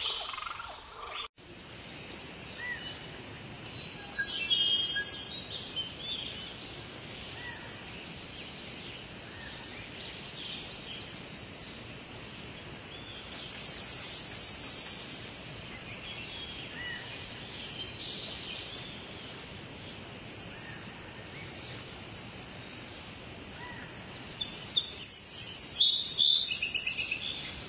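Birds chirping and calling over a steady background hiss, in short scattered calls, with a louder run of rapid repeated high calls near the end.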